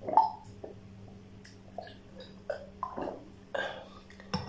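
A man burping after drinking water: one loud burp just after the start, then several softer burps.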